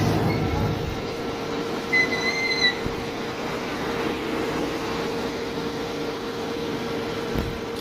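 Mini excavator running steadily with a constant hydraulic-type whine, its heavy low engine note easing just after the start. A brief high-pitched metallic squeal comes about two seconds in.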